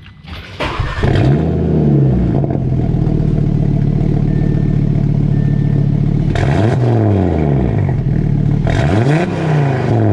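Audi RS3/TT RS 2.5-litre turbocharged inline-five (DAZA) starting up, flaring and settling to a steady idle, then revved twice, each rev rising and falling, about two seconds apart.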